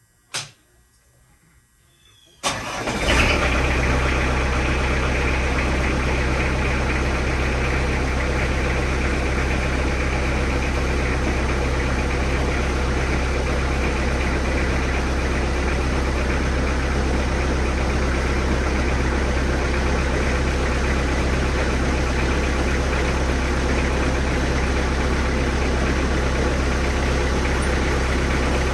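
A sharp click, then a 1999 Bobcat 763 skid steer's diesel engine starting about two and a half seconds in and settling into a steady run.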